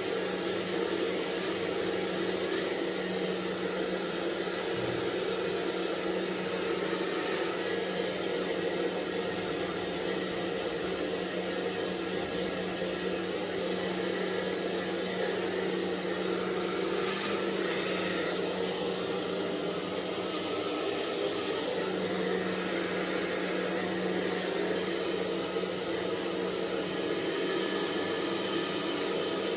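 Hair dryer running steadily on one setting, a constant blowing hiss over a low motor hum.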